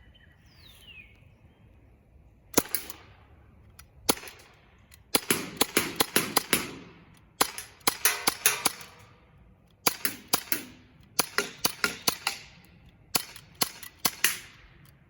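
Umarex Glock 17 CO2 blowback BB pistol firing a long string of sharp cracks. Two single shots come first, then quick runs of several shots with short pauses between them, as the magazine is emptied.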